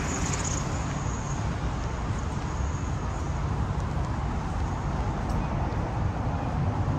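City street traffic: a steady rumble of cars and other vehicles driving past. A faint high whine comes and goes in the first few seconds.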